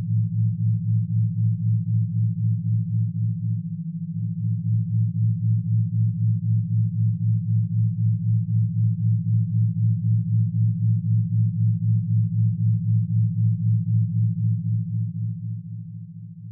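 Synthesized low sine tones for brainwave entrainment: one steady tone with a second, lower tone pulsing about three times a second, like an isochronic tone. The pulsing tone drops out briefly about four seconds in, and the sound fades down near the end.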